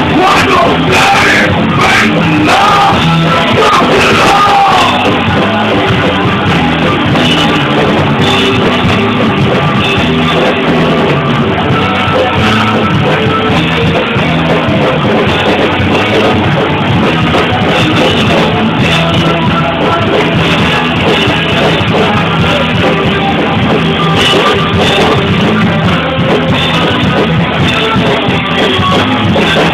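A rock band playing loud live, with a singer's voice over the first few seconds.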